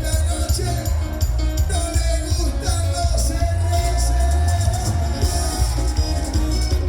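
Live band playing Latin dance music: a melody line, possibly sung, over a heavy bass and busy cymbal and percussion beat.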